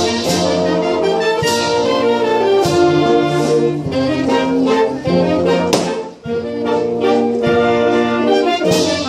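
Brass band music: horns holding sustained notes over a lower bass line, with several sharp percussion strikes spread through the passage.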